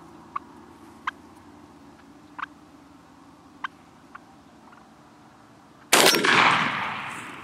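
A wild turkey jake clucks five times, short sharp notes a second or so apart. About six seconds in a shotgun fires once at close range, the kill shot on the bird, a loud blast that rolls away over about a second and a half.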